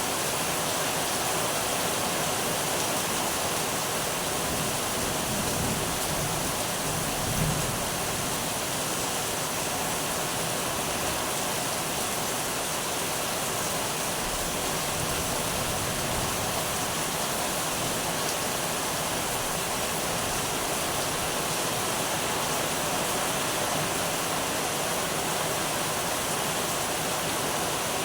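Heavy rain falling steadily, with a brief low rumble of distant thunder about seven seconds in.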